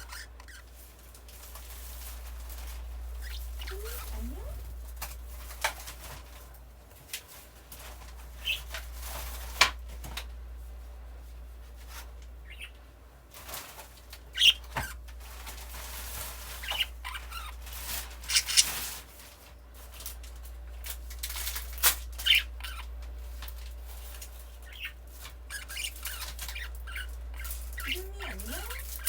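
Budgerigar moving about in its nestbox and cage: scattered sharp clicks and scratches with occasional short high chirps and flutters.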